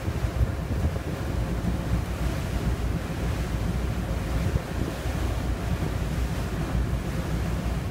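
Wind blowing across a phone's microphone: a steady, buffeting low rushing noise with no distinct events.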